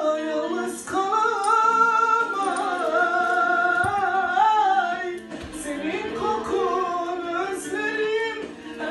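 A man singing a Turkish song in long, held phrases, his voice sliding up and down in pitch, with a short break about halfway through.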